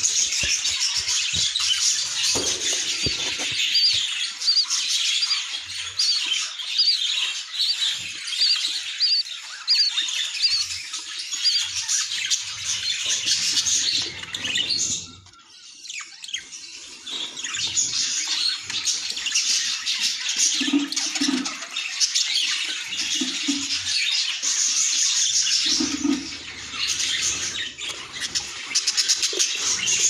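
Budgerigars chirping and chattering in a dense, raspy, unbroken chorus, which drops away briefly about halfway through.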